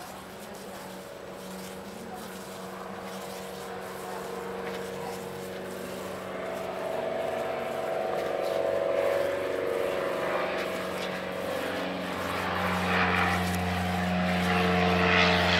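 A motor's steady drone that grows gradually louder.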